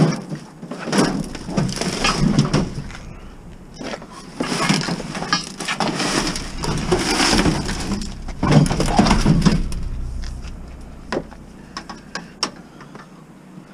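Shattered glass crunching and scrap scraping and knocking as a fireplace with a broken glass front is shoved into a minivan's cargo area, in long rough bursts that give way to a few sharp knocks near the end.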